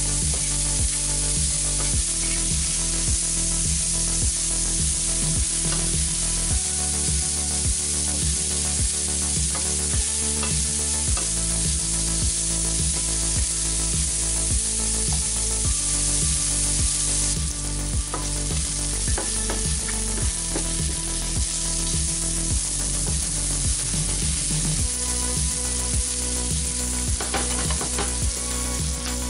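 Sliced onions frying in butter in a pan, a steady sizzle with the scrape of a wooden spatula stirring them. The sizzle eases a little about two-thirds of the way through.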